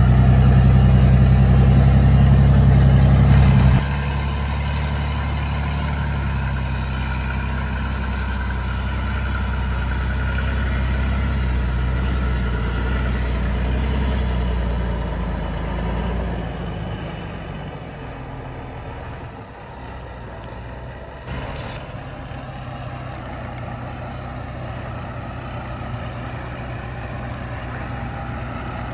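Heavy truck engine running steadily: loud for the first four seconds, then suddenly lower, and fading further a little past the middle before running on more quietly. A single short click comes about two-thirds of the way in.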